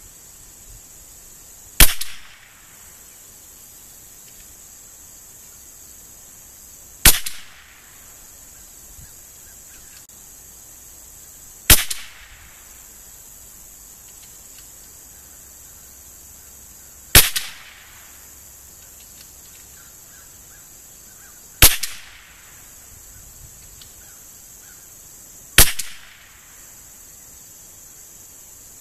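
Six single shots from an Anschutz 1913 .22 rimfire target rifle, spaced four to five seconds apart, each a sharp crack with a short decaying tail.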